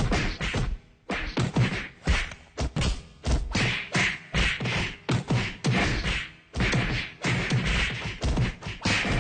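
Fight sound effect: rapid flurries of punches, whacks and thuds, broken by brief pauses about a second in and again past the middle.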